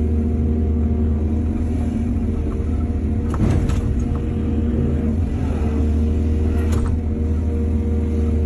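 Excavator's diesel engine running steadily under load, with two short metallic clanks, one about three and a half seconds in and one near the end.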